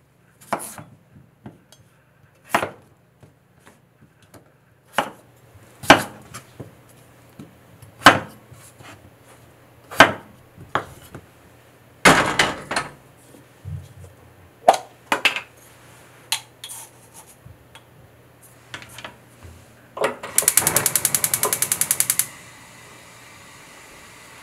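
Chef's knife cutting peeled potatoes on a wooden cutting board, sharp knocks a second or two apart for about eleven seconds. Then a stainless saucepan is set on the gas stove grate with a short clatter. Near the end, a gas hob's igniter ticks rapidly for about two seconds, followed by a faint steady hiss from the lit burner.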